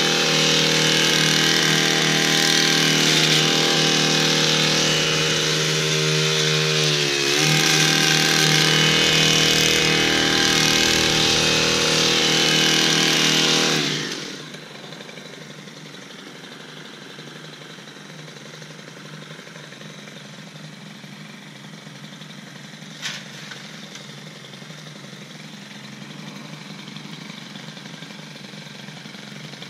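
Small engine of a gas-powered extended-reach hedge trimmer running at high revs while cutting, dipping briefly in pitch about a quarter of the way in. It drops off sharply about halfway through, and one sharp click follows some seconds later.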